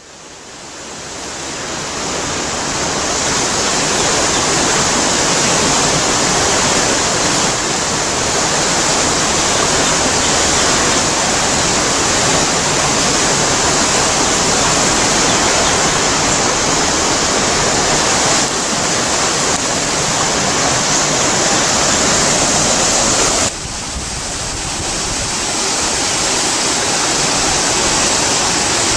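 Steady rush of fast water churning through the channel at an old mill site, fading in over the first couple of seconds. It drops abruptly about 23 seconds in and then builds back up.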